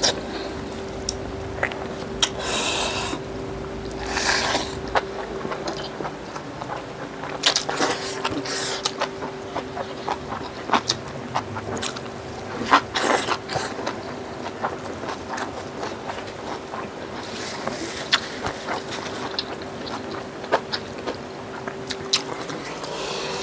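Close-up mouth sounds of people eating by hand: biting and chewing fried chicken, greens and rice, with irregular short clicks and smacks and a few longer noisy bursts. A steady hum runs underneath.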